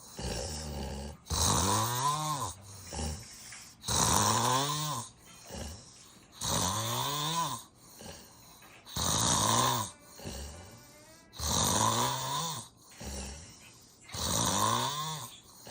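A sleeper with sleep apnea snoring loudly and regularly: six rasping snores, about one every two and a half seconds. Each snore rises and then falls in pitch, with quieter breaths out in between.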